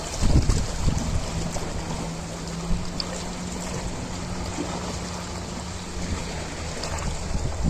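Ocean waves washing and swirling, with a louder surge just after the start. A steady low hum runs beneath.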